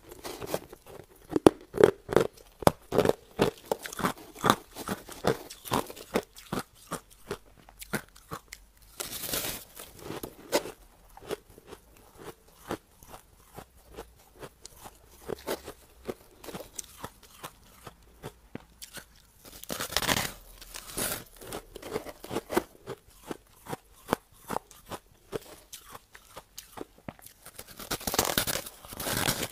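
Packed crushed ice being bitten and chewed with hard, rapid crunches. There are three louder stretches of crunching, the last near the end.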